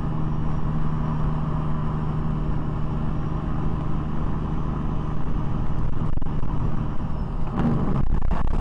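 Semi truck's diesel engine and tyre noise heard from inside the cab at highway speed: a steady drone over road rumble, turning rougher near the end.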